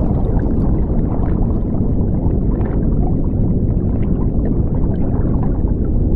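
Underwater bubbling and rushing water sound effect: a steady, deep, dense wash of noise with faint pops of bubbles.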